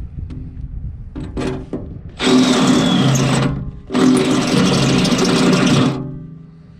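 Cordless drill boring through the steel wall of a tractor front-end loader bucket: a few short trigger pulls, then two long runs at full speed with a short pause between them.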